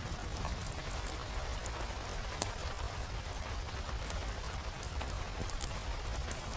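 Steady rain falling, with scattered sharp ticks and pops throughout over a steady low rumble.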